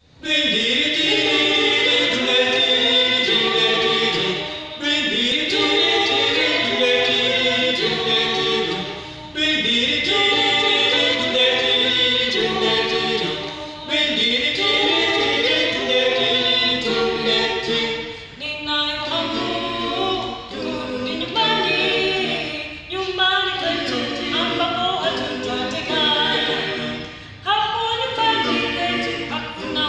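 A small mixed group of men and women singing unaccompanied in harmony, in phrases of about four to five seconds with short breaks between them.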